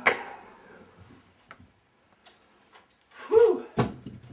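Parrot giving one short call that rises and falls in pitch about three and a half seconds in, followed at once by a sharp knock; before that, only a few faint clicks.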